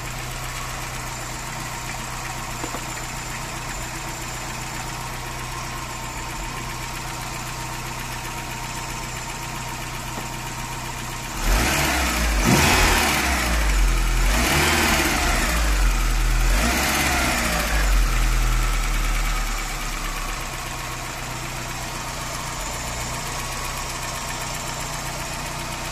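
Volkswagen Saveiro engine idling steadily with its accessory belt drive turning. About eleven seconds in, a louder rushing, rumbling stretch lasts around eight seconds as water is poured between the spinning belt and pulley, which quiets the belt noise being hunted for.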